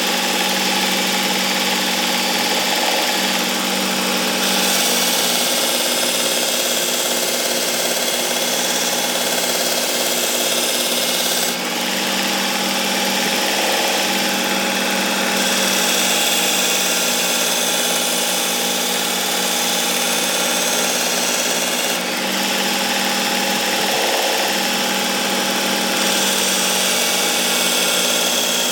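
Work Sharp Ken Onion Edition sharpener with its blade grinding attachment running steadily, the X22 (about 1000 grit, 22 micron) abrasive belt grinding the edge of a thick meat cleaver. The grinding sound shifts a few times, with two brief dips.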